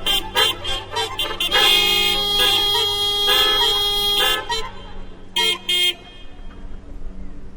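Several car horns honking in a hocket, the cars taking turns with short toots that overlap. About one and a half seconds in, the horns join in a held chord lasting over two seconds. The horns then break off, with two last short honks near six seconds.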